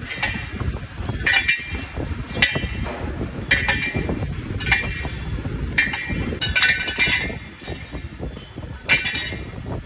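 Lathe boring the bore of a heavy metal wheel hub: the tool cuts with a short, high metallic ring about once a second, over the steady low rumble of the lathe's drive.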